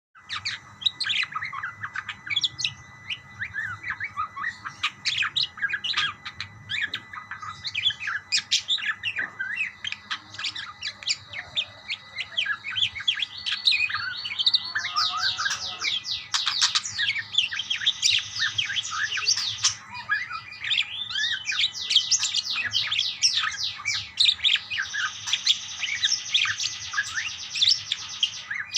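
Several budgerigars chirping and warbling back and forth in a dense stream of short, rapid chirps. About halfway through, the chirping becomes busier and almost continuous.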